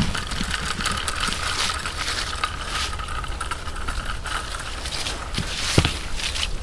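Bicycle and dog-trailer wheels rolling over a leaf-covered gravel track, with a thin steady squeal that fades out about four seconds in. A single sharp knock comes near the end, as a dog climbs into the trailer.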